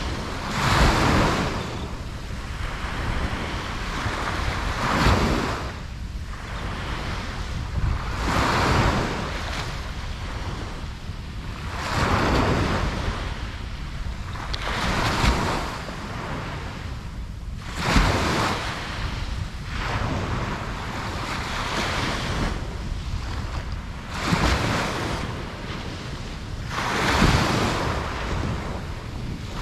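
Ocean waves breaking on a beach, a surge of surf every three to four seconds that washes out before the next one.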